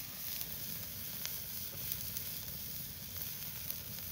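Chicken sizzling on a wire-mesh grill over an open wood fire: a steady hiss with a few sharp crackles from the burning wood.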